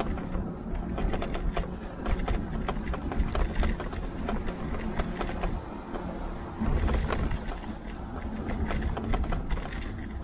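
A Tern HSD bike rolling over an uneven path, heard through the handlebar-mounted camera: a steady low rumble with quick, irregular rattles and clicks from the bike, heaviest a few seconds in and again near the end.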